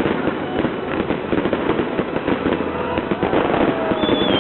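Fireworks display: a dense, continuous barrage of rapid cracks and bangs from bursting shells, with a high whistle starting near the end.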